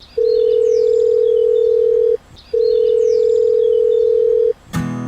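A steady electronic beep sounds three times, each about two seconds long with short gaps between, with faint high chirps alongside. Strummed acoustic guitar music starts near the end.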